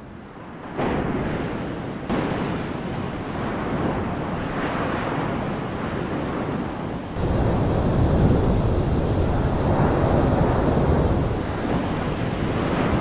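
Continuous roar and rumble of Anak Krakatau's surtseyan eruptions, steam and ash blasting up out of the sea. The sound jumps abruptly louder about a second in and again about seven seconds in, where spliced clips change.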